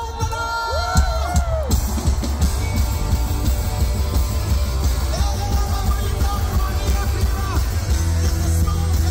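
Garage rock band playing live with guitars, bass and drums, heard from the crowd with a heavy, booming low end. Yelled vocals swoop up and down in the first couple of seconds.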